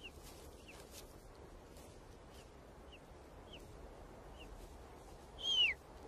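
Golden eagle chicks begging as they are fed: short, high cheeps, each sliding down in pitch, every half second or so, with one longer, louder down-slurred call near the end.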